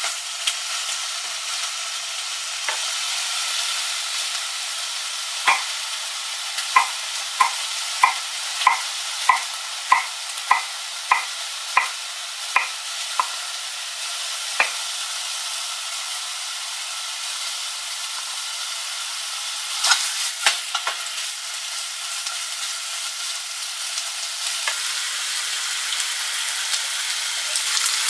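Food sizzling steadily in a frying pan as it is stir-fried. Partway through comes a run of sharp, ringing clicks, about two a second, like a utensil knocking against the pan, and a few more follow later.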